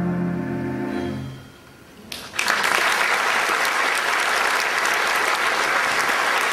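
The final chord of a 2/10 Style H Wurlitzer theatre pipe organ, released after about a second with its low notes dying away, then after a short lull an audience breaks into steady applause about two seconds in.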